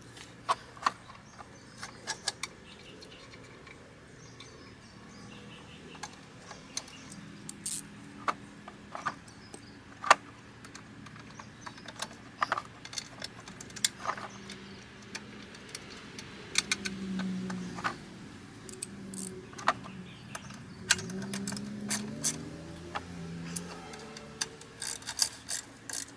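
Scattered metallic clinks and clicks of hand tools, bolts and brackets as an ATV winch is mounted back onto the frame. A low, wavering hum comes in about two-thirds of the way through.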